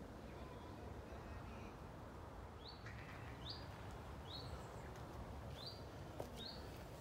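A bird calling: a short rising note repeated about once a second from about three seconds in, over a steady low background rumble, with one sharp knock near the end.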